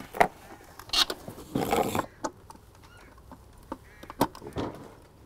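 Scattered clicks and knocks, with a short rustle about one and a half seconds in, as a mains plug is handled and pushed into an outdoor weatherproof wall socket.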